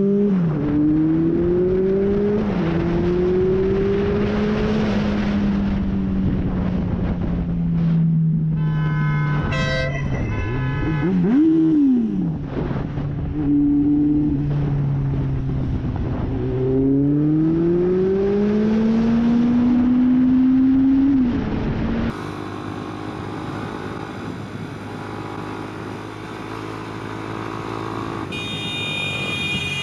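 Motorcycle engine accelerating through the gears, its pitch climbing and then dropping back at each upshift, with wind rush on the microphone; a horn sounds about nine seconds in. About two-thirds of the way through, the sound changes to a quieter, steadier motorcycle engine, with a short high beep near the end.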